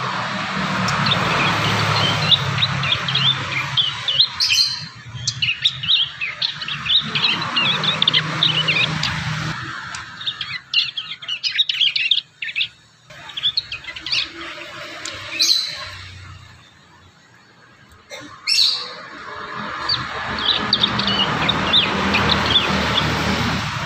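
Young prinias (prenjak) chattering in rapid strings of short high chirps as they practise their still-unformed song. There are a few louder sharp notes and brief lulls around the middle.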